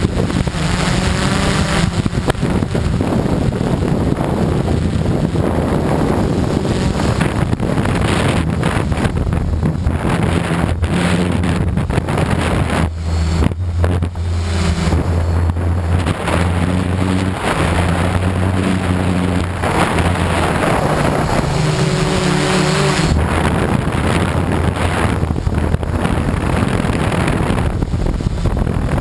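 Quadcopter's electric motors and propellers humming, heard from its on-board camera, the pitch stepping up and down as the throttle changes, with wind rushing over the microphone.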